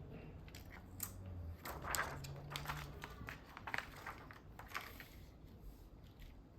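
Hands handling the plastic parts of a wireless keyboard: a run of sharp plastic clicks and brief crinkling rustles, thinning out near the end.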